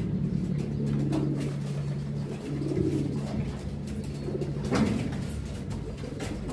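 Domestic pigeon cooing repeatedly in low, throaty phrases, with a single sharp knock about three-quarters of the way through.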